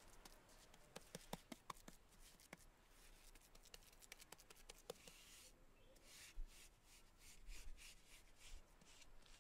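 Faint rubbing and scraping of a hand and a trowel smoothing wet mud plaster around the base of a brick cookstove. There are small scattered clicks of soil at first, then a run of short scraping strokes in the second half.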